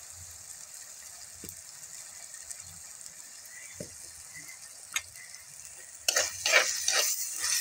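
Sliced onions, tomatoes, capsicum and green chillies sautéing in oil in a heavy black cooking pot, with a faint steady sizzle and a few light clicks. About six seconds in, a metal spoon starts stirring the vegetables, scraping against the pot in quick, louder strokes.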